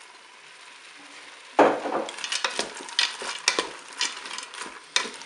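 Food sizzling faintly in the Cookeo's hot bowl on browning mode. About a second and a half in, dry farfalle pasta is stirred in with a wooden spoon, rattling and scraping irregularly against the pot over the sizzle.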